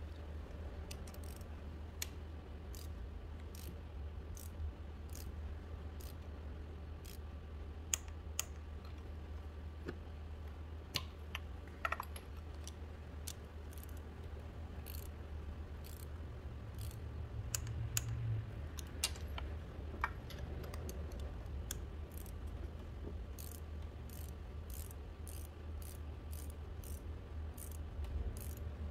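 Irregular light metallic clicks and taps from hand tools and engine parts being handled during spark plug and ignition coil work, thickening into a quick run of clicks near the end. A steady low hum runs underneath.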